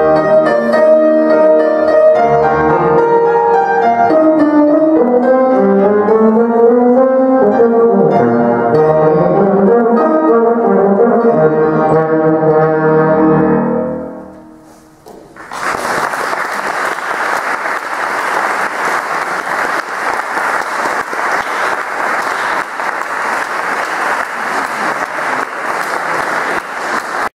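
Euphonium and piano playing the closing bars of a piece, the final chord dying away about fourteen seconds in. After a moment's hush, an audience applauds.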